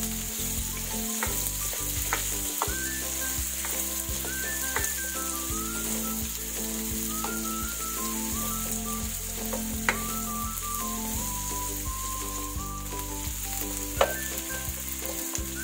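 Sliced onions and cumin seeds sautéing in hot oil in a nonstick pan, sizzling steadily as a spatula stirs them. Two sharp knocks of the spatula on the pan come about ten seconds in and near the end.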